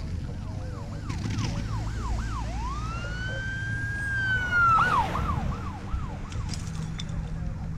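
Emergency vehicle siren: quick up-and-down yelps for about two seconds, then one long wail that rises, holds and falls, then a few more fast yelps about five seconds in.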